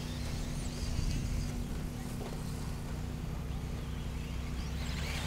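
Radio-controlled stadium trucks running on a dirt track: a faint high, gliding motor whine over a steady low hum.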